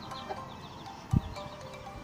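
Chicks peeping in short high falling cheeps over soft background music, with one short low thump a little over a second in.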